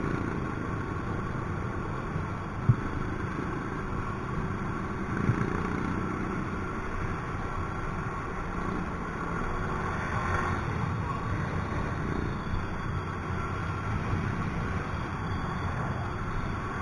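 Riding noise from a Yamaha Mio i 125 scooter cruising in traffic: its engine running steadily under wind and road rumble, with one sharp click about three seconds in.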